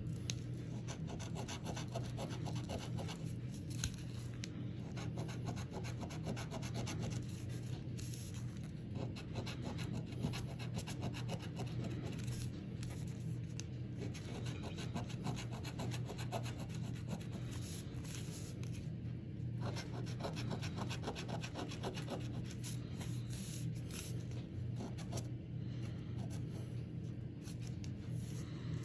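A coin scratching the coating off an instant lottery scratch-off ticket, in many quick short scraping strokes with no pause.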